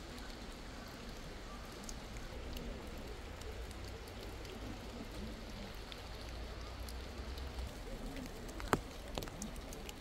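Light rain falling in a forest: a steady soft hiss with scattered drops ticking, and one sharper drop-tap near the end.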